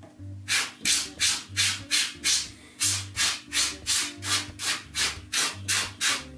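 Quick, even swishing strokes, about three a second, made by hand, over soft background music.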